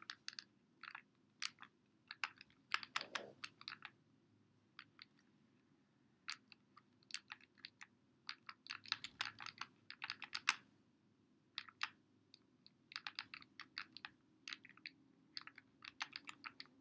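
Calculator keys being pressed: faint, quick irregular runs of clicks.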